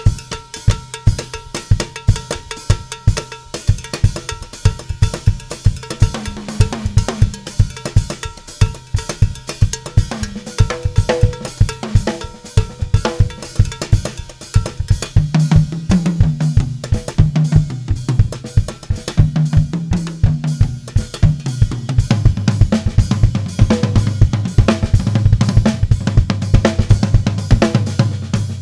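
Drum kit solo with fast, dense strokes on snare, bass drum and cymbals. From about halfway in, the toms pick out a melody, their pitches stepping from note to note.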